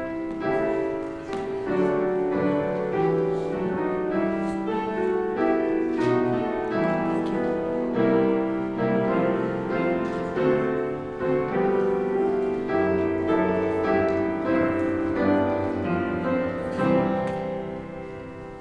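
Piano offertory music: sustained chords and a melody played at a slow pace, fading away near the end.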